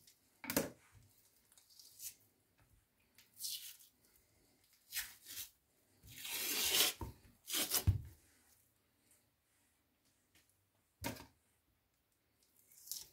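Membrane being pried up with a knife and torn off a rack of raw pork ribs: several short rips and scrapes, the longest about six seconds in, with a few knocks on the cutting board.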